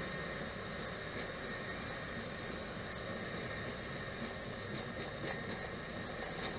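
Steady cockpit noise of a Boeing 737 on the ground: the engines at idle and the hiss of the air conditioning, with a faint steady high whine and a few faint clicks.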